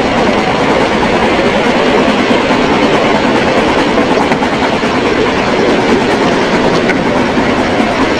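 Ride-on miniature railway train running along its track, heard from on board: a loud, steady rumble of wheels on the rails.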